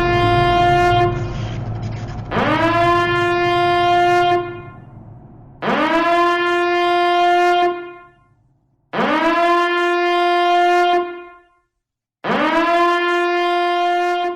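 A blown horn sounding long, steady blasts over and over, each about two seconds long and starting with a quick upward slide in pitch; the first fades out a second in, and four more follow at roughly three-second intervals.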